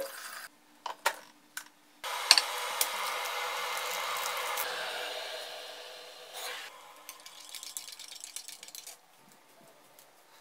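A few clicks as a kettle is handled, then water poured from the kettle into a mug for about four seconds, splashing steadily and fading out. Light clinks and rattles follow.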